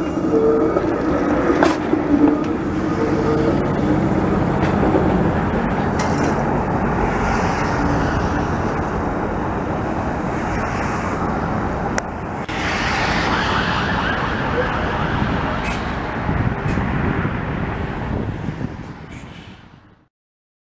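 Toronto CLRV streetcar rolling through the depot yard, a steady whine over the rumble of its wheels on the rails. About twelve seconds in a steady rushing noise takes over, and the sound stops just after twenty seconds.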